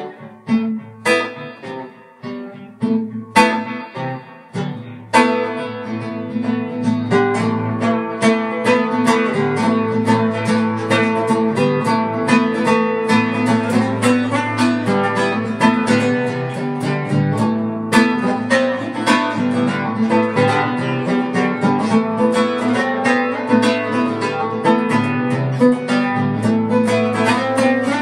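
Solo acoustic guitar playing an instrumental piece. A few separate plucked notes with gaps between them, then from about five seconds in a steady stream of quick notes.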